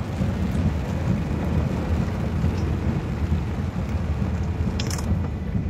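Steady low rumble of a car driving through heavy rain and standing floodwater, heard inside the cabin, with rain and spray hissing on the body and windshield. A brief sharp noise comes near the end.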